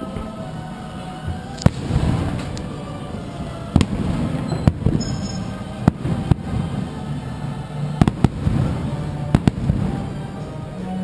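Fireworks bursting in a string of sharp, irregular bangs, about nine in all, some in quick pairs, with show music playing underneath.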